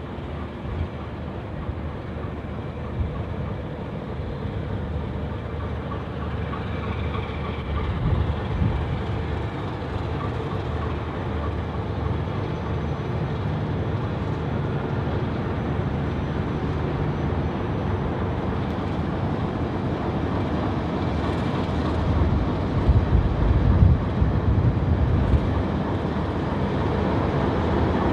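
Steady low rumble of the Ghan, a diesel-hauled passenger train, slowly growing louder, with a few louder knocks near the end.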